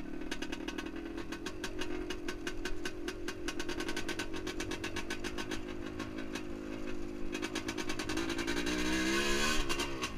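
1978 Yamaha DT400E's single-cylinder two-stroke engine running steadily while the bike is ridden, the revs climbing about a second and a half before the end and then dropping.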